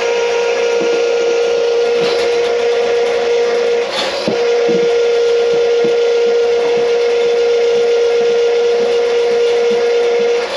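An electric motor running steadily with a high hum and a hiss. It falters briefly with a click about four seconds in and dips again at the end.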